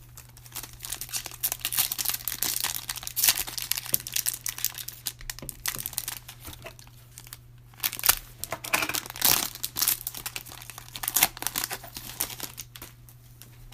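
Foil trading-card pack wrappers crinkling and tearing as retail packs of Panini Prizm cards are ripped open and handled, in repeated bursts with a couple of short lulls. A steady low electrical hum sits underneath.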